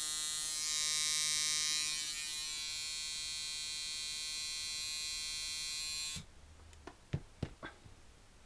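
Coil tattoo machine, a Micky Sharpz Microdial liner with Wesley Verity coils, running at 5.5 volts with a steady buzz, then cutting off suddenly about six seconds in, followed by a few light clicks. The machine is set up as a buzzy liner that, by its builder's judgement, needs a bit harder hit.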